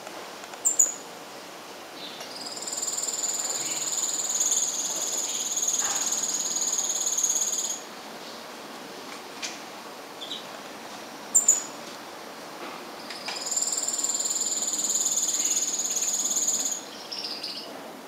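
Blue-faced parrotfinch singing: two songs, each opening with a short sharp high note and then a long, very high phrase held steady for several seconds, with a few soft notes between them.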